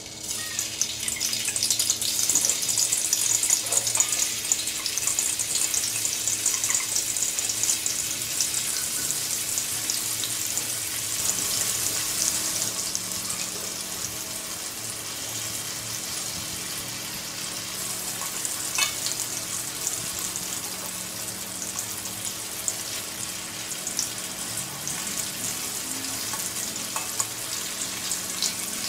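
Tofu cubes frying in hot oil in an aluminium wok: a steady crackling sizzle, a little louder over the first dozen seconds, with a few clicks of metal tongs turning the pieces.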